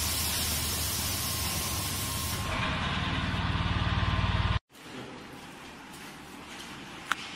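Solar-panel laminator running with a steady hum and hiss, which grows louder with a fast low pulsing before cutting off abruptly a little over halfway through. Then quieter factory room tone with a single sharp click near the end.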